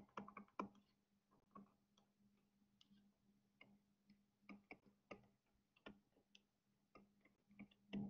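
Faint, irregular light taps and clicks of a stylus on a tablet screen during handwriting, over a low steady hum.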